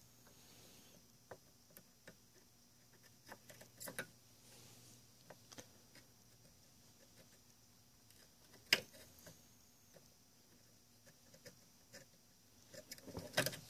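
Faint scattered clicks, taps and scratches of a hemostat, a soldering iron and wires being handled on a turntable's metal chassis while an RCA cable is desoldered, with one sharper click about nine seconds in.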